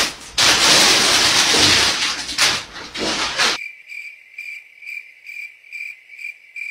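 Loud rustling of plastic packaging being torn open for about three and a half seconds. Then the sound cuts abruptly to a cricket-chirping sound effect, a high, even chirp about three times a second, as for an awkward silence.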